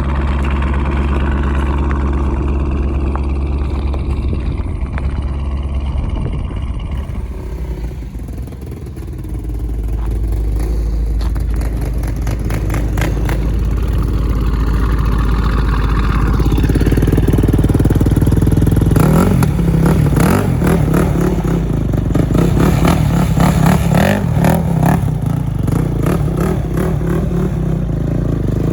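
C5 Corvette Z06's LS6 V8 running through Corsa Extreme mufflers shortly after a cold start. The exhaust note is steady, drops briefly about eight seconds in, then rises and holds. From about nineteen seconds a rapid clattering and scraping runs over it.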